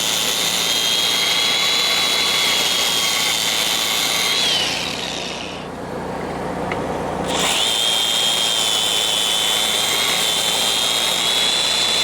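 High-speed handheld power tool running with a steady high whine, working on metal. About four and a half seconds in it is let off and spins down. It is quiet for about two seconds, then spins back up to speed and runs on.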